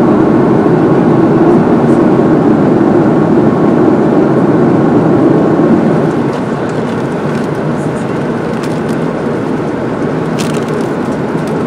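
Steady cabin noise of an Airbus A330 in flight, a loud rushing hiss of engines and airflow. It drops somewhat in level about six seconds in, and a few light crackles follow as a crisp packet is handled.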